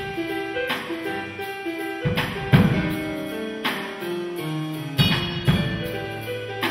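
Swing jazz piano played on a digital keyboard, with a drum kit keeping time: light cymbal strokes a few times a second and a few heavier bass-drum accents.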